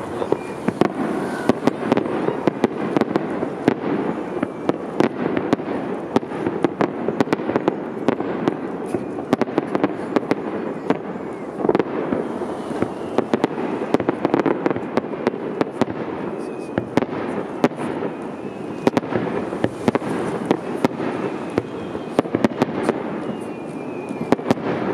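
Fireworks display: aerial shells bursting in a rapid, continuous series of sharp bangs over a steady rumble.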